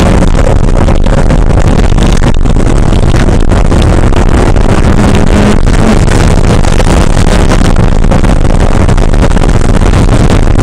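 Porsche 968's four-cylinder engine running hard on track, with heavy wind and road noise. It is loud and steady throughout, close to overloading the recording.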